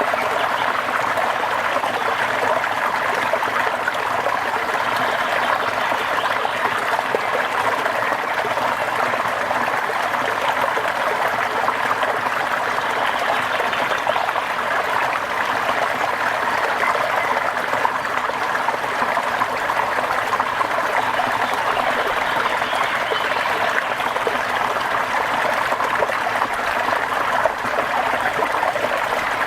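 Steady rain falling, an even rush of water with no let-up.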